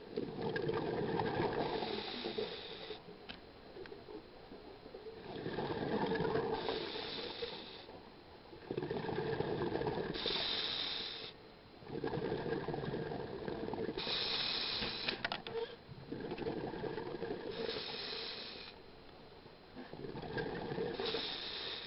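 A scuba diver breathing through a regulator underwater, about one breath every four seconds: the hiss of each inhale alternates with the rush of exhaled bubbles.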